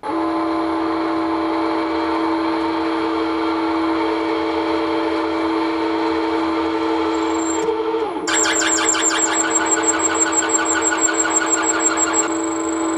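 Milling machine spindle running with a steady hum. About eight seconds in, a drill bites into the yellow-metal flywheel blank with a rapid, even chatter and a high squeal, then eases off about four seconds later while the spindle keeps running.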